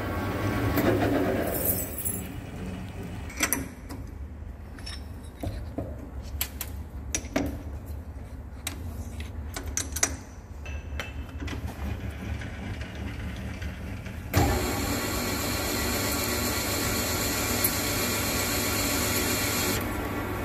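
Centre lathe cutting a high-tensile steel piston blank: a boring cut runs on for the first couple of seconds, then comes a stretch of scattered clicks and knocks as the tool is changed in the toolpost. About fourteen seconds in, a steady cutting noise starts as an SNMG insert takes a cut and throws chips, and it stops just before the end.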